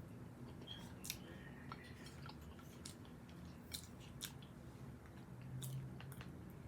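Faint chewing of tuna and crackers close to the microphone, with scattered sharp mouth clicks and smacks, and a brief low hum near the end.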